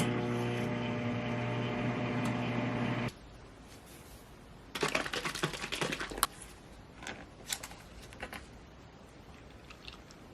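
Microwave oven running with a steady electrical hum that cuts off about three seconds in. A second or so later comes a quick clatter of clicks and rattles, then a few light clicks.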